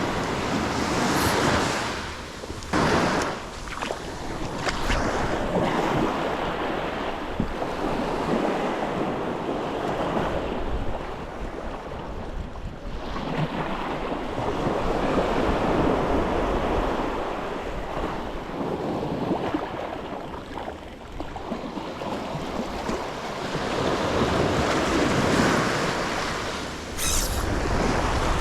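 Surf breaking and washing on a sandy beach, rising and falling in swells every several seconds, with wind buffeting the microphone.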